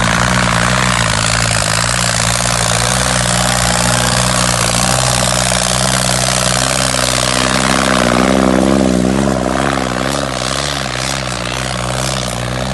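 Diesel tractor engine running hard under heavy load while pulling a disc harrow, its pitch wavering about eight seconds in.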